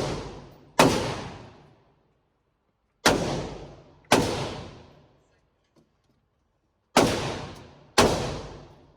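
Rifle shots fired from the shoulder: five sharp reports in pairs about a second apart, each trailing off in a long echoing decay.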